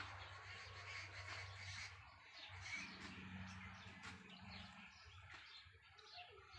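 Faint birds calling, with a low steady hum underneath.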